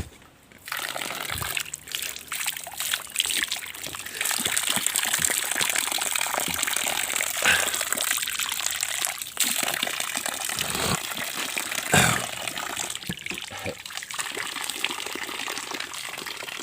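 Water running and splashing as a person washes their face. The flow starts about half a second in and gets louder about four seconds in, with scattered splashes throughout.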